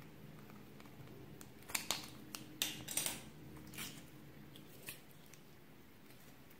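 Red store-bought slime being peeled out of its thin clear plastic container, with a cluster of sharp crackling clicks from plastic and slime about two to three seconds in and a few single clicks after. A faint steady hum lies underneath.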